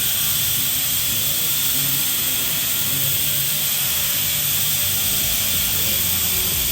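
TIG welding arc on a steel pipe joint, hissing steadily without a break while a fill and hot pass is laid.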